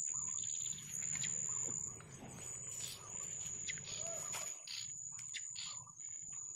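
Insects, crickets, trilling steadily at a high pitch, over rustling and scattered light knocks from hands and feet working in the net and grass.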